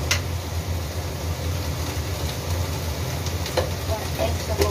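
Steady low hum with a hiss over it, and a few light clicks and knocks from handling things in the kitchen: one at the start and two near the end.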